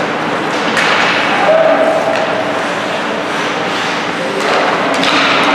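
Ice hockey game sound in an arena: thuds and sharp knocks of puck and sticks against the boards over a steady noisy hiss, with a sharp knock just under a second in and another near the end, and a held shout about a second and a half in.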